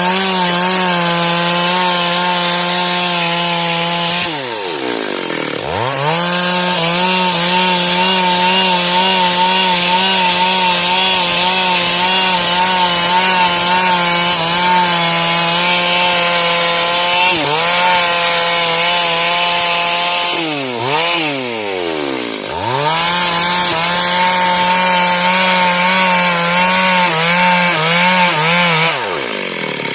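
Stihl MS 382 two-stroke chainsaw ripping dry wood along the grain, the engine running steadily at high revs under load. Several times the revs drop away and climb back up as the throttle is eased and reapplied, most notably about four seconds in, twice around the twenty-second mark, and near the end.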